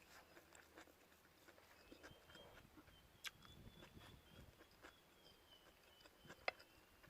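Near silence with faint eating sounds: quiet chewing and a few sharp clicks, the clearest about three seconds in and again near the end.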